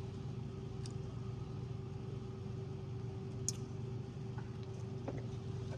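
Steady low mechanical hum with a faint held tone over it, broken by a few faint ticks.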